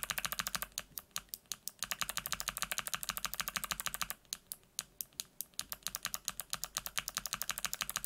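Fast typing on a mechanical keyboard with PBT keycaps, as a sound test of a hybrid clicky switch: a Kailh BOX Midnight Jade fitted with the Mute Jade's silicone-dampened top housing, which makes it much more muted than a regular BOX Jade. The clacks come about eight a second, with a brief pause about four seconds in.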